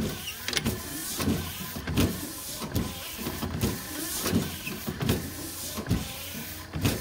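Electric windshield wiper motor of a 1978 Pontiac Trans Am running on jumper leads, its crank turning the linkage with a regular surge a little faster than once a second.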